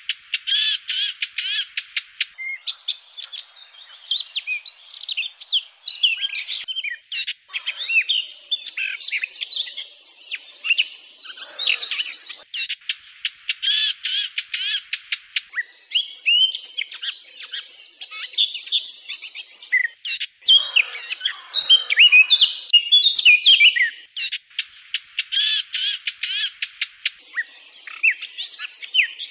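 Eurasian blackcap singing without a break: runs of varied, quick warbling notes alternate with several stretches of very fast, evenly repeated notes.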